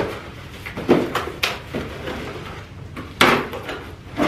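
Cardboard shipping box being handled and pulled open: a series of scraping, crinkling cardboard noises and knocks, the loudest about three seconds in.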